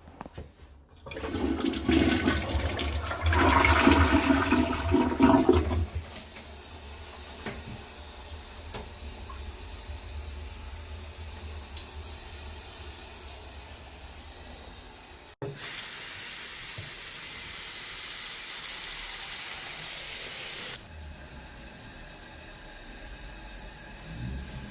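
Toilet being flushed: a loud rush of water for about five seconds, then the steady hiss of the tank refilling. The hiss turns louder and higher about fifteen seconds in and drops back about twenty-one seconds in.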